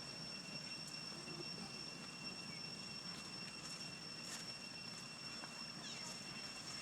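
Steady outdoor background with a constant high-pitched insect drone, two unchanging whining tones, and a few faint ticks.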